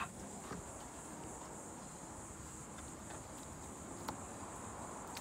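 Steady high-pitched insect chorus, with a faint tap about four seconds in.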